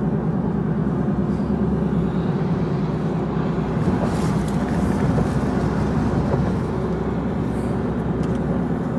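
Steady road and engine noise heard from inside a moving car, swelling slightly about four seconds in as another car passes close alongside.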